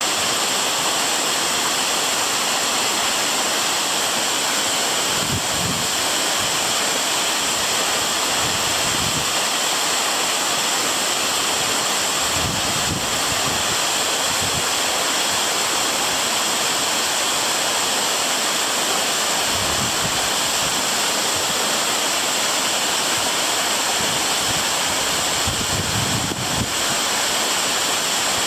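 Waterfall rushing with a loud, steady hiss of falling water, with a few brief low rumbles now and then.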